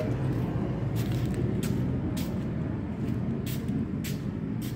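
Steady low machine hum in a workshop, with about six short scuffing clicks at irregular intervals.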